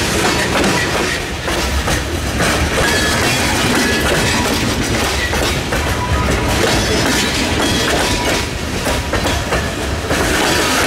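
Freight train cars rolling past close by: a steady rumble of steel wheels on rail with clickety-clack as the wheel trucks cross rail joints, and a few brief faint high squeals from the wheels.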